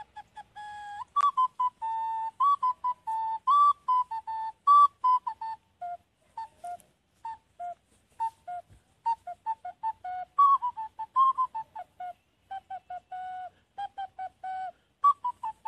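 Olive-wood ocarina playing a lively tune of short, separate notes with a pure tone, a few of them held a little longer, with no drone beneath it.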